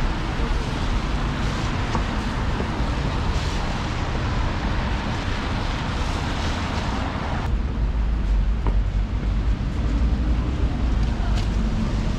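City street traffic: a broad hiss of passing vehicles, typical of tyres on a wet road, cuts off sharply about seven and a half seconds in. A steady low rumble runs underneath.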